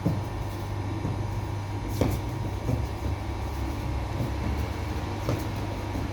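Steady low hum of bakery machinery running, with a few short knocks, the sharpest about two seconds in and another about five seconds in.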